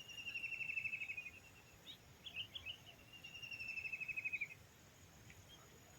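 A high-pitched pulsed trill, each about one and a half seconds long and falling slightly in pitch, heard twice, with a few short chirps between them.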